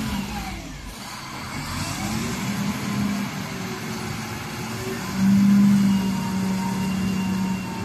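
XCMG ZL50GN wheel loader's diesel engine working under load while it carries and lifts a full bucket of sand. The engine note is steady, then gets louder for about a second about five seconds in as the bucket is raised.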